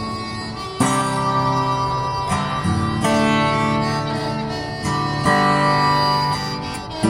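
Instrumental music: an acoustic guitar strums chords that ring on, with a harmonica playing held notes.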